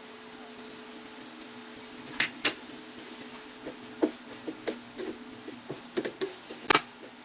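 A utensil knocking and scraping against a frying pan while fried rice ingredients are stirred, in irregular clinks that start about two seconds in and come thicker toward the end, over a steady hum.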